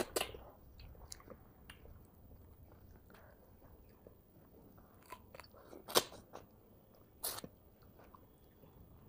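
Close-miked chewing of a hand-fed mouthful of rice and fish curry: soft wet mouth noises with a few sharp smacks or bites, the loudest about six seconds in and another just after seven.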